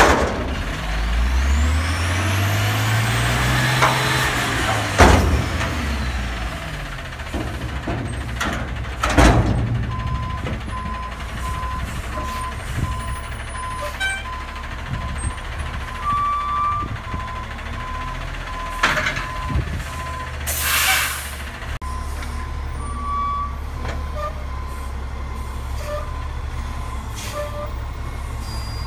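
Front-load garbage truck working a commercial dumpster: the diesel revs up and back down as the hydraulic arms cycle the dumpster, and the steel bin bangs loudly twice. From about ten seconds in, a reversing alarm beeps steadily as the truck backs up, air brakes hiss once, and the engine idles steadily.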